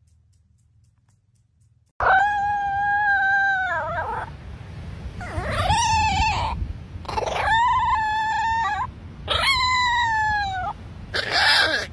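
A small dog howling: four long, high howls, each rising at the start, holding steady and falling away at the end, under a low rumble of wind on the microphone. They begin after about two seconds of near silence.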